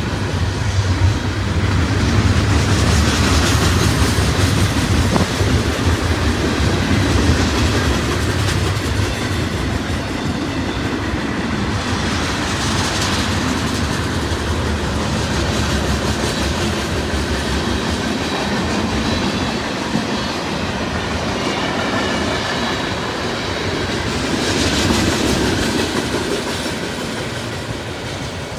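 Freight cars of a mixed manifest train rolling past: a steady rumble of steel wheels on rail with a clickety-clack over the joints, fading near the end as the last tank cars pull away.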